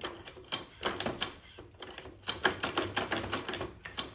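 Begode Master electric unicycle's air-shock suspension pumped up and down by hand on its fast rebound setting, giving a rapid, irregular clatter of knocks. The metal parts clonk at the ends of travel, bottoming out and at full extension, despite the rubber stoppers on the sliders.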